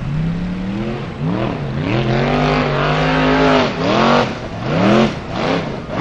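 Formula Offroad buggy's engine revving hard on a steep gravel climb. It is held high for a couple of seconds, then worked in quick surges of throttle, about two a second, near the end.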